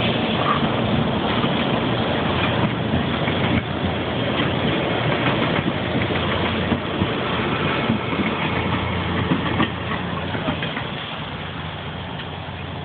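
Loram RG400 rail grinder train working along the track: a steady low engine drone under a dense, harsh noise full of rapid clicks, getting a little quieter in the last few seconds.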